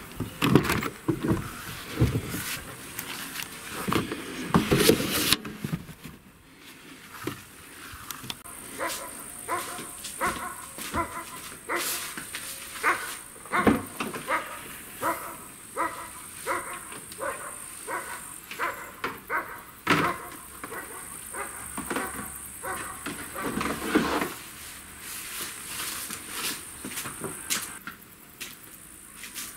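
A Nissan Terrano's door being handled and opened, with knocks and rustling in the first few seconds. A dog then barks over and over, about one or two barks a second, for around fifteen seconds. A thump comes near the end, while the tailgate is being opened.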